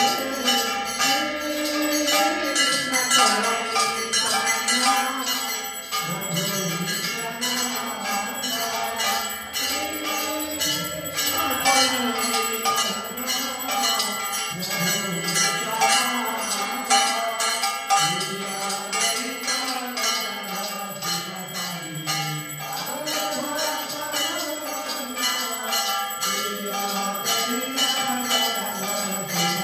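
Temple hand bell rung steadily with quick, even strokes during aarti, with singing voices underneath.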